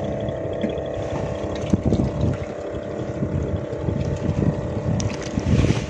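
A boat engine running steadily with a constant hum, mixed with wind buffeting the microphone.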